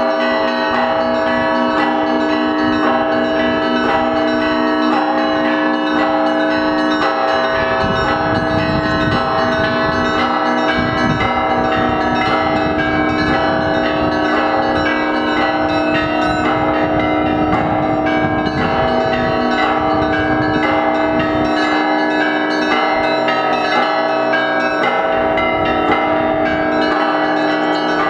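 Russian Orthodox church bell ringing (zvon): many bells struck in a fast, dense pattern, their tones overlapping and ringing on. Deeper strokes come in more heavily from about seven seconds in until about twenty-one seconds.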